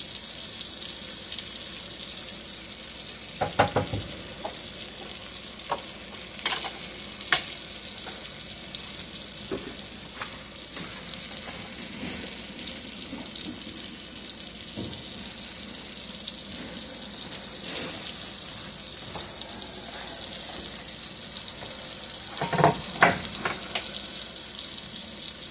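T-bone steak frying in butter in a hot pan: a steady sizzle with scattered sharp pops and clicks, and a louder cluster of them about 22 seconds in.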